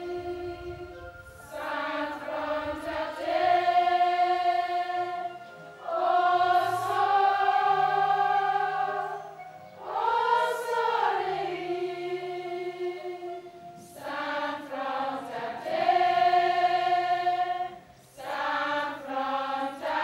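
A choir of schoolgirls singing together, phrase by phrase, with short breaks between phrases every few seconds.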